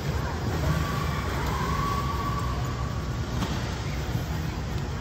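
Steady low background din of a large, echoing exhibition hall, with a brief held high tone lasting about a second, starting a second and a half in, and a single faint click later.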